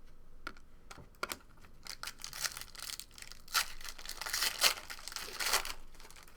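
Football trading card pack and cards being handled: a foil pack wrapper crinkling and tearing, with irregular sharp clicks and rustles of cards being slid and flicked, busiest and loudest in the second half.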